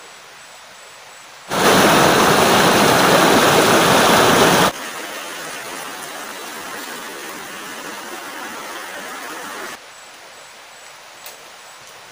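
Rain pouring onto forest leaves, a rushing hiss that starts suddenly about a second and a half in, very loud for about three seconds, then drops to a softer steady downpour and stops abruptly near ten seconds.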